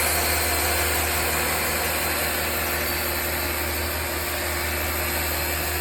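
Electric sander with 220-grit sandpaper running steadily against a poplar board, an even motor hum under a continuous sanding hiss.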